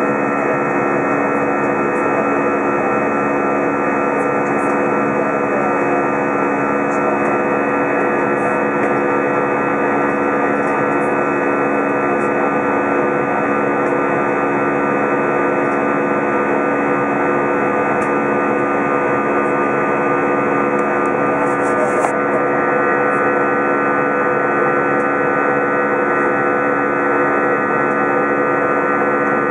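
Airbus A320 cabin noise in flight: the jet engines' steady drone heard inside the cabin, laced with several steady humming tones. There is a small click and a slight change in the tone about twenty-two seconds in.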